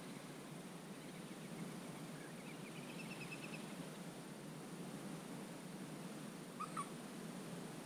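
Wetland ambience: a steady low hiss, with a small bird's quick trill of rapidly repeated high notes about three seconds in and a short, louder two-note bird call near the end.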